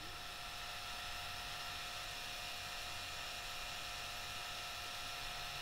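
Steady faint hum and whir of a machine spindle running with a small reamer chucked in it, level and unchanging.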